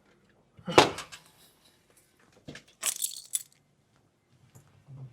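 A sharp thump less than a second in, then a set of keys jingling about two seconds later, with a few small handling noises near the end.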